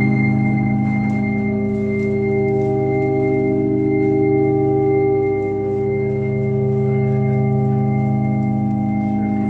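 Background music: a sustained organ-like chord held steadily without a break.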